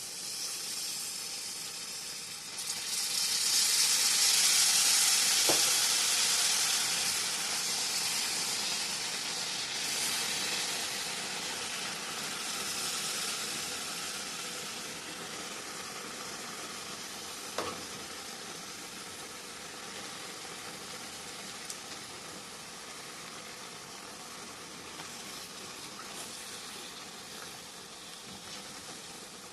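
Orange and tangerine juice hitting a pan of hot melted sugar: a loud sizzling hiss that starts suddenly about two and a half seconds in, then slowly dies down to a softer, steady sizzle.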